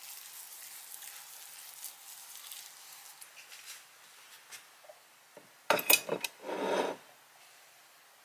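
Metal serving tongs on a wire cooling rack and ceramic plate: a quick run of sharp clinks about six seconds in, then a short scrape as a piece of food is lifted off the rack. Before that there is only faint light rustling.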